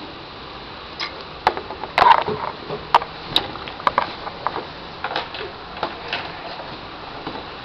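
Small plastic toy figures being handled and set down: irregular light clicks and knocks, some with a brief ring.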